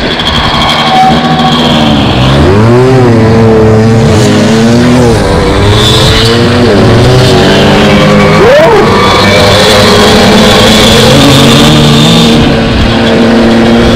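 Dirt bike engine revving up and down as it rides, its pitch rising and falling several times.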